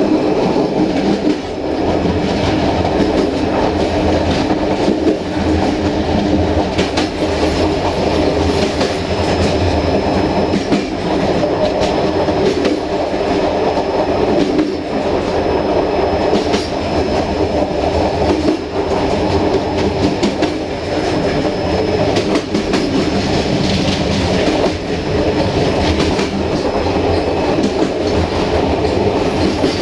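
Passenger train carriage running along the track: a steady rumble of wheels on rail with frequent clicks and knocks over rail joints. A faint thin high squeal rises out of it through the middle stretch.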